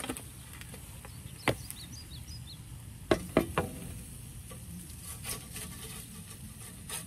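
Large metal spatula clinking against a cast-iron grill grate and a serving platter as a grilled fish fillet is lifted off: one sharp click about a second and a half in, then a quick run of three or four about three seconds in. A faint steady sizzle runs underneath.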